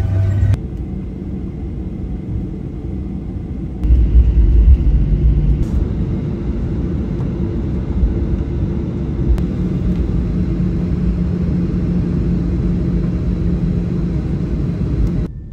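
Boeing 737 airliner taxiing, heard from inside the cabin: a steady low rumble with an engine hum. The rumble grows louder about four seconds in and eases a couple of seconds later.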